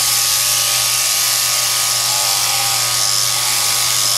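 Electric sheep-shearing handpiece, driven by an overhead shearing machine through a jointed down-tube, running with a steady buzz as it shears wool from a sheep's leg.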